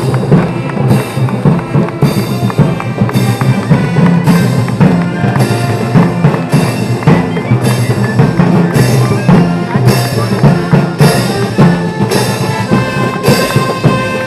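Parade marching band playing a Moorish march (marcha mora): bass drum and crash cymbals strike a steady beat, a cymbal crash about every two-thirds of a second, under a sustained band melody.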